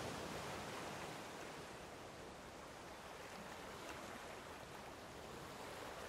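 Faint steady hiss, an even wash of noise like rushing water, with no tones or distinct sounds in it.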